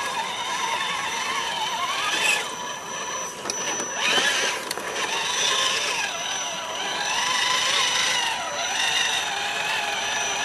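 Electric motor and gear whine of an RC scale crawler truck driving through muddy water, the pitch wavering and sliding up and down with the throttle, with a couple of louder surges.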